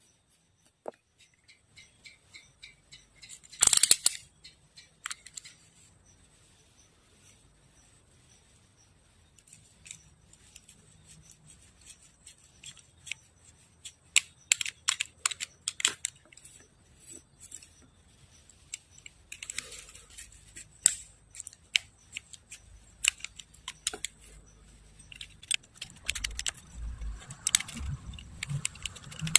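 Small objects being handled by hand: irregular clicks, taps and scraping strokes, with a louder rattle about four seconds in and a few low thumps near the end.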